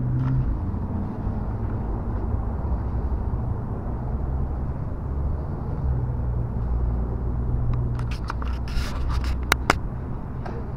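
Steady low rumble of open-air background noise in a garden centre yard. Several sharp clicks and knocks come about eight to ten seconds in.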